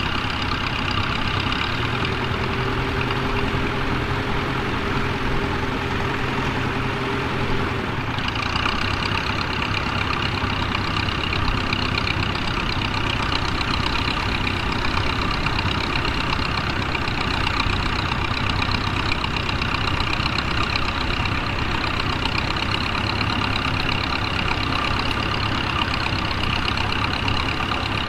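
Small vintage tractor engine, a grey Ferguson TE-20, running steadily under load as it pulls a mounted plough through stubble. The engine note changes about eight seconds in.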